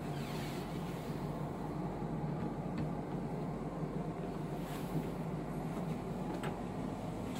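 Steady low machinery hum, with a few faint light clicks in the middle and near the end.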